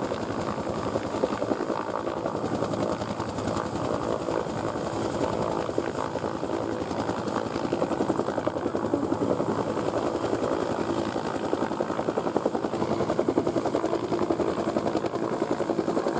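Bell UH-1 helicopter hovering, its two-bladed main rotor beating rapidly and steadily.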